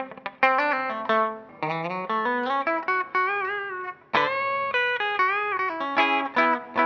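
A Bacchus Universe Series T-style electric guitar playing a solo line of single notes and short double-stops. Some notes are held with vibrato and bends, around the middle of the phrase and again a little later.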